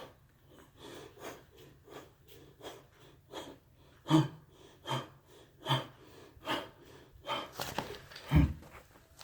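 A person breathing hard during exercise, in short rhythmic puffs that grow stronger about halfway through, roughly one a second.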